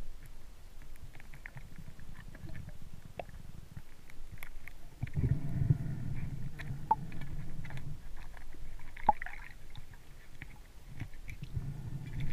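Muffled underwater noise in murky fresh water: a low rumble that swells for a couple of seconds in the middle and again near the end, with scattered small clicks and ticks, heard while a diver moves with a speargun.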